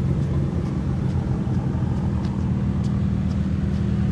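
Sports cars driving in a convoy: a steady low engine rumble with road noise.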